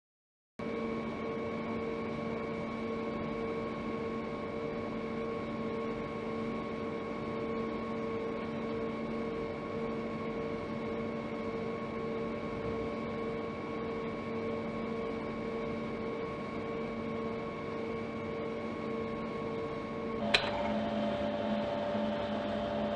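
A steady electronic hum made of several fixed tones, one low and others higher, starting abruptly out of silence. About 20 seconds in a sharp click breaks it, and the hum carries on with a different set of tones.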